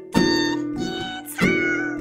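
Background music with plucked, guitar-like notes and a melody line.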